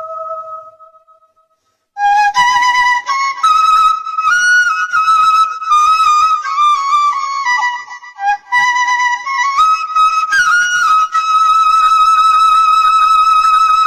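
Flute melody as background music. A held note fades out, and after a brief pause a flowing tune begins about two seconds in, ending on a long held note.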